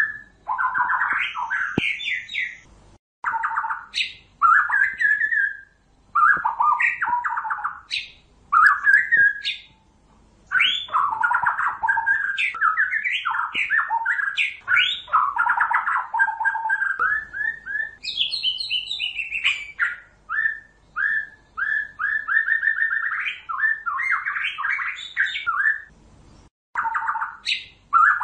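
White-rumped shama singing: varied phrases of clear, shifting whistles separated by short pauses, with fast runs of repeated notes later on.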